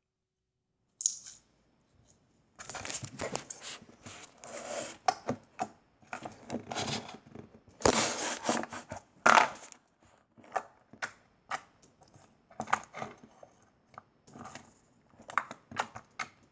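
Light green glossy slime being squeezed and poked by hand, giving irregular crackling, popping clicks that come and go, mostly from about two and a half seconds in.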